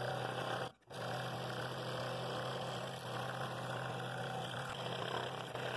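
Scroll saw running steadily with its blade cutting through a hardwood bowl blank, a steady low motor hum under the rasp of the blade. It breaks off for a moment a little under a second in.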